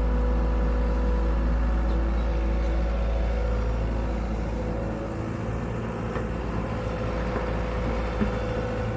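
An engine running steadily with a deep hum and a few steady tones, easing slightly about halfway through.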